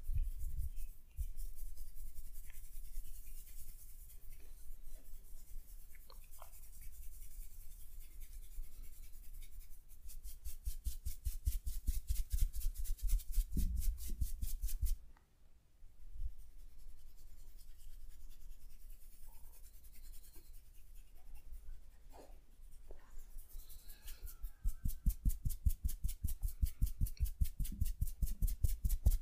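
Hands rubbing over skin during a massage. There are two runs of quick, even strokes, several a second: one about a third of the way in and one near the end.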